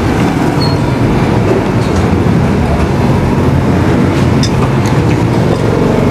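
Steady low rumbling background noise, with a few light clicks about four to five seconds in.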